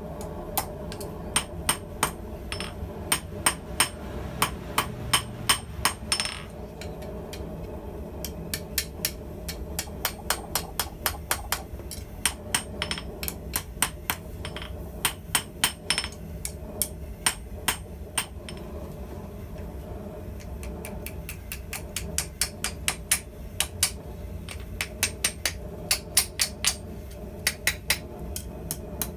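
Hand hammer striking a red-hot round steel bar on an anvil, bending it to shape. The blows come in runs of about three a second, separated by pauses of a couple of seconds, some ringing briefly, over a steady low rumble.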